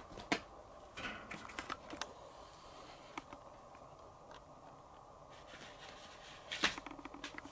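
Light scattered taps and clicks of a calico kitten's and a red Abyssinian cat's paws on a floor mat and against a wire pet pen. There is a sharper knock shortly after the start and a louder cluster of clicks about two-thirds of the way through.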